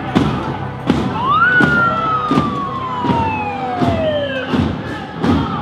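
A single siren-like wail rises briefly, then glides slowly down over about three seconds, over steady thumps about twice a second.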